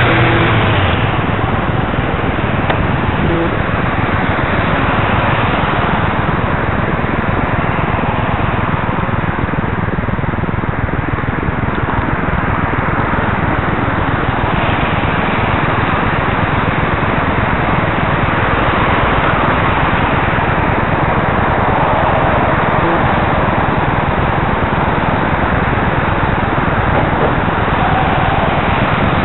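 Steady rushing wind and road noise on a bicycle-mounted camera while riding along a wet street, with traffic around; a car passes just at the start and fades within about a second.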